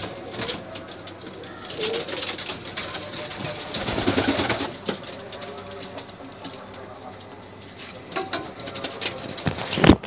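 Domestic pigeons cooing, with scattered sharp clicks and a burst of rustling about four seconds in.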